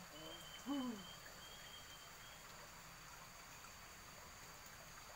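Quiet outdoor ambience with a faint steady hiss. In the first second, a short voice sound slides down in pitch, and a faint thin high tone runs through the first couple of seconds.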